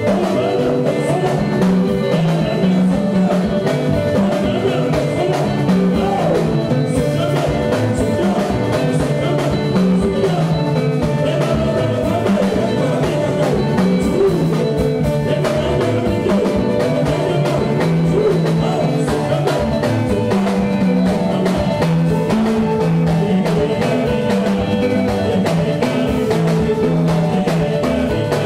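Live band playing amplified music: electric guitar over a repeating bass line and a drum kit, with singing.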